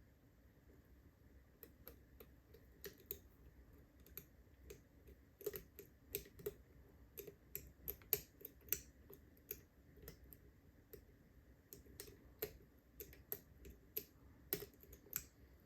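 Lock pick and tension wrench working the pin stacks of a Master Lock Pro Series 6840's Edge core: a string of small, sharp, irregularly spaced metal clicks, starting about a second and a half in.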